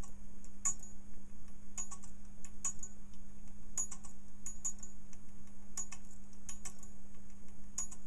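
Light ticking of a home-built Hipps-toggle electric pendulum rig, about one tick a second with some ticks doubled, over a steady low hum.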